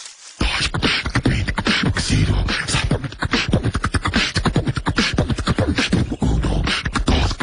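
Beatboxing: a fast, continuous run of mouth-made drum sounds, sharp clicks and hisses over deep kick-like thumps, starting about half a second in.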